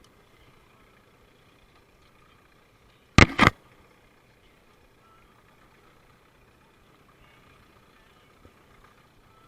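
A short, loud double knock about three seconds in, over a faint steady hum.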